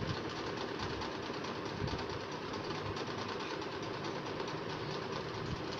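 Steady, machine-like running noise with a fast, even flutter.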